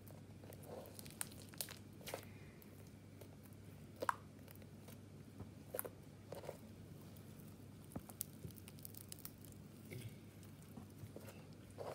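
Hand squishing, poking and stretching slime: soft sticky pops and crackles at irregular intervals, the sharpest about four seconds in, over a faint low hum.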